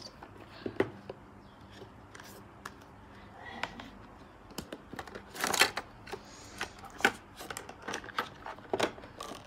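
Cardboard smartphone box being opened and handled: scattered taps and knocks of the lid and inner tray, with a louder rustling scrape about five and a half seconds in.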